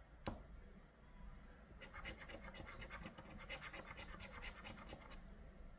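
A wooden stick scraping the scratch-off coating off a paper lottery ticket in fast, faint back-and-forth strokes, starting about two seconds in and stopping shortly before the end. A single light tap comes just after the start.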